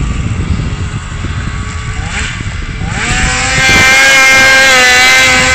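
Polaris IQR 600 snowmobile's two-stroke engine, faint at first, then revving up about three seconds in and running loud at high revs as the sled comes close.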